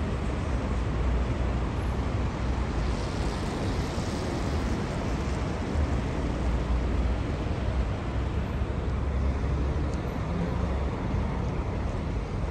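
Steady city street traffic noise with a heavy low rumble.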